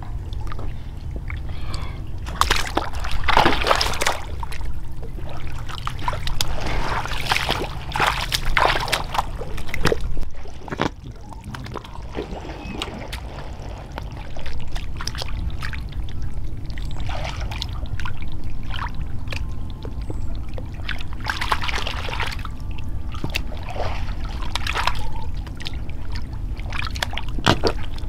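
Water splashing and sloshing in irregular bursts every couple of seconds, as when someone works by hand in shallow water, over a steady low rumble.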